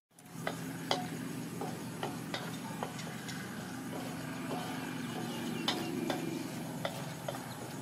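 Wooden spatula stirring food in a wok, with irregular clicks and scrapes of the spatula against the pan and light sizzling. A steady low hum runs underneath.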